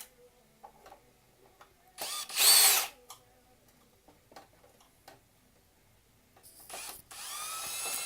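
Cordless drill backing out printer screws: two runs of the motor, a short loud one about two seconds in and a longer one near the end, each with a whine that rises as the drill spins up. Light clicks and knocks of handling the plastic casing between the runs.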